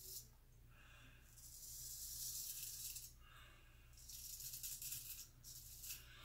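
Gold Monkey straight razor blade scraping through lathered stubble on the cheek in long strokes: a dry rasping hiss, one stroke about a second in, another about four seconds in, and a short one near the end.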